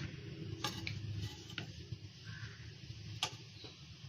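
A few short, faint clinks of a spoon against a dish or pot, spaced a second or so apart, over a low steady hum.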